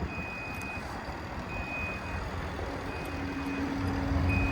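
A vehicle's reversing alarm beeping, a high steady tone about every second and a half, over the low rumble of a truck's engine that grows louder in the second half.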